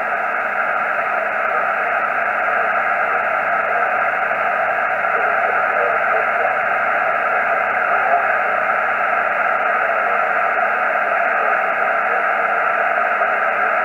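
Steady shortwave receiver hiss from a Yaesu FT-847 tuned to a 40-meter single-sideband net, heard over its speaker with no station transmitting. The noise is even and narrow-band, like a telephone line, with nothing rising above it.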